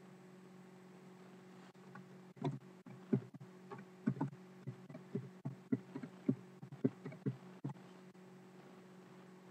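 A run of about a dozen soft, irregular knocks and thumps over about five seconds, over a steady low hum.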